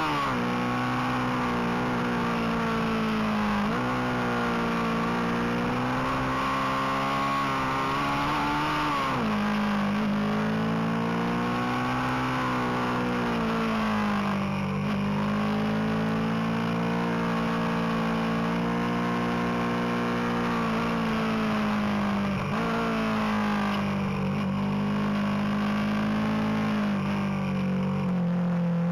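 Motorcycle engine heard from on board while riding briskly up a twisting road. The engine note rises and falls continuously, dropping sharply about five times and climbing again.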